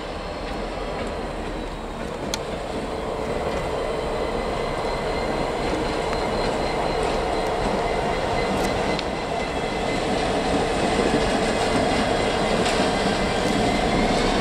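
DB Schenker Class 66 diesel-electric locomotive, its EMD two-stroke V12 engine running as it moves slowly past. A thin whine rises near the end, over a steady engine noise, with a few short clicks.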